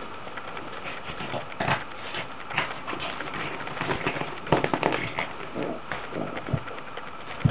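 Boston terrier playing in her dog bed: irregular scuffling and rustling of the bed's fabric with short thumps, the loudest about four and a half seconds in.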